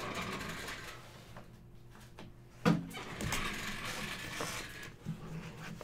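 Faint rustling and handling noises, with a single sharp knock about two and a half seconds in.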